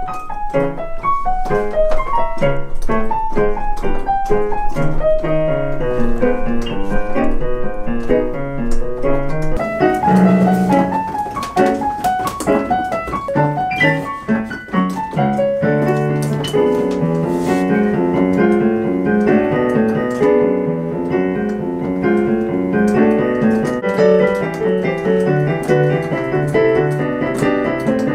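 Digital piano being played: a continuous, flowing piece with many notes.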